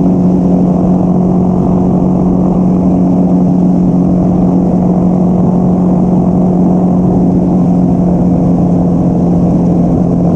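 Yamaha XT660X's single-cylinder engine running at a steady speed while riding, a steady drone with one held pitch.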